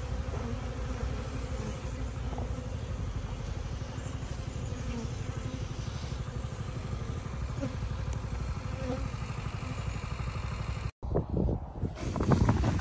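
Honey bee colony buzzing in an open hive over a steady low rumble. About eleven seconds in, the sound cuts out for an instant and gives way to a louder, uneven rush of noise.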